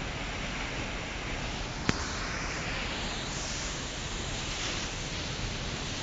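La Paz waterfall's steady rushing roar as a tall single drop plunges into its pool. A single sharp click sounds about two seconds in.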